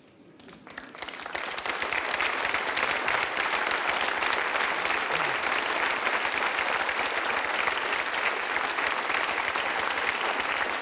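Large audience applauding, the clapping building up over the first second or two and then holding steady.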